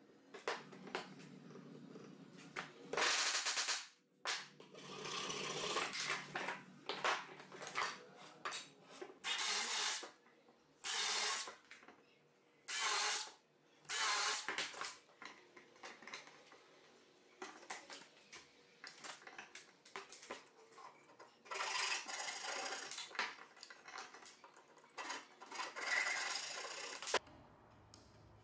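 DeWalt cordless drill run in repeated short bursts and a few longer runs, boring holes in ash chair rails, with knocks and rubbing of the wood between runs.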